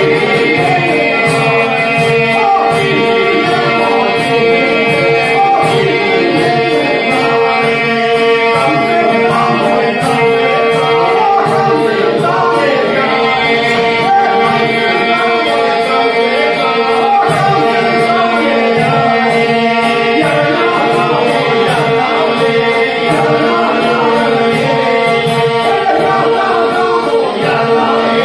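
Albanian saze folk ensemble playing live: men singing over an accordion, with a frame drum and its jingles beating a steady rhythm. A steady held note drones beneath the voices throughout.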